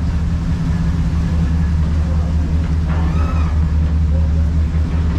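Steady low drone of a ferry's engines running at the berth. Faint voices are heard briefly about three seconds in.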